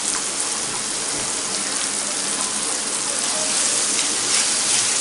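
Chopped onion, spring onion and tomato sizzling steadily in hot oil in a frying pan on a high flame, growing a little louder near the end.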